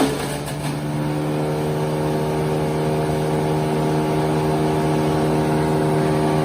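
Wood chipper's engine running at a steady speed. A burst of rougher noise at the very start dies away within about a second, leaving the engine running evenly.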